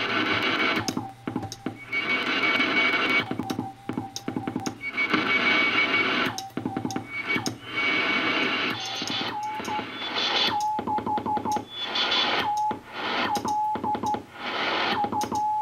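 Shortwave receiver audio from a National NC-183D tuned to the 40-metre band: a Morse code (CW) tone keyed on and off under heavy hiss and crackle of band noise, with the static dropping out each time the tone sounds. The tone is clearer in the second half.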